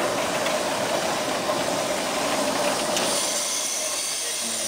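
JNR D51-class steam locomotive No. 200 rolling slowly past with a steady hiss of steam.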